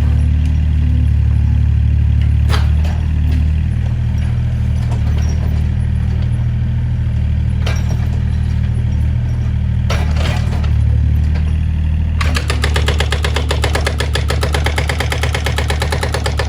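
Excavator's diesel engine running steadily, with a few sharp knocks and cracks of demolition debris. About three-quarters of the way in, a fast, even rattling clatter starts and keeps on.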